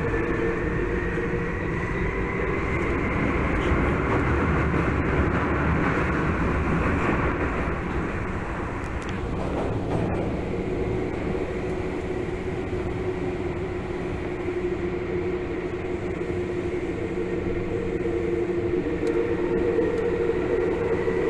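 Tokyu 8500 series electric train heard from inside the car while running: a steady rumble of wheels on rail under the hum of its traction motors and gears. During the first few seconds a high whine climbs in pitch as the train gathers speed, then holds. The whine fades briefly around nine seconds in, then returns.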